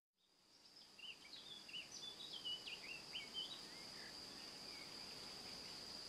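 Faint nature ambience fading in: a steady high insect trill, with a bird's quick wavering chirps over it in the first half.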